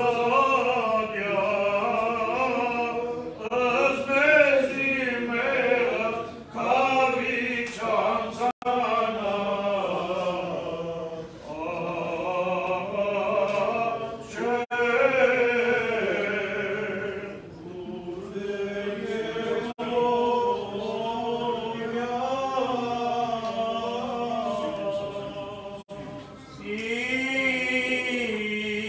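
Male clergy voices chanting an Armenian Apostolic church hymn unaccompanied, a slow, winding sung melody held on long notes.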